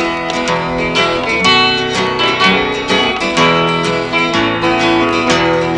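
Instrumental intro of a country gospel song, led by picked and strummed acoustic guitar with a quick run of plucked notes.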